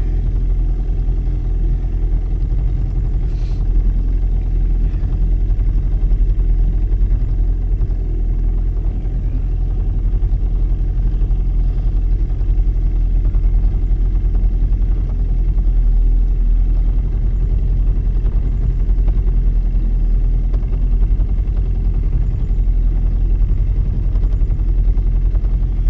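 Small boat's motor running steadily, a constant low hum.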